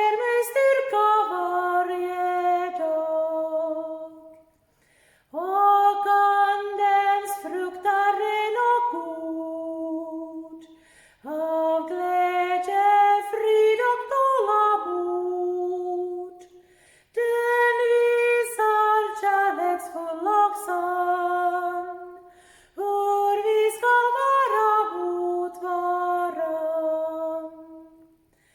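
A woman singing a Swedish hymn unaccompanied, solo, in phrases of about five seconds with short pauses for breath between them.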